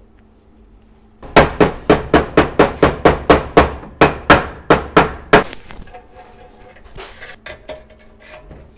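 A soft-faced mallet taps a new oil seal into its bore in the aluminium housing of an Aisin AW55-51SN automatic transmission. It gives a quick run of sharp strikes, about four a second, for about four seconds, starting a second in. A few lighter knocks follow near the end.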